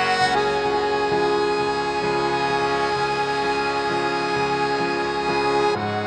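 Instrumental background music with sustained chords that change every second or so.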